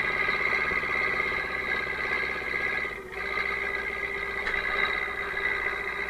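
DT-75 crawler tractor's diesel engine running steadily under load as the tractor pushes snow with its front blade; the sound drops briefly about halfway through.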